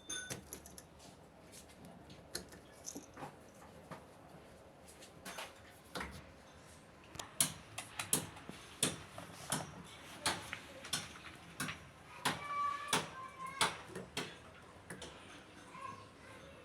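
Irregular sharp clicks and knocks, coming more often and louder from about seven seconds in, with a few brief squeaks around thirteen seconds.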